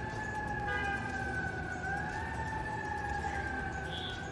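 An emergency vehicle siren holding one long tone that rises slightly about two seconds in and then slowly falls, over low street noise.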